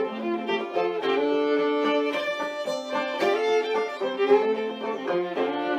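Background music led by a violin playing a melody of sustained notes.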